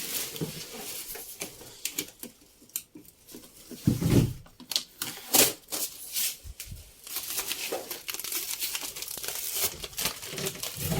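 Packaging being handled and pulled off a new washing machine: continuous rustling and crinkling of wrapping, with a dull thump about four seconds in.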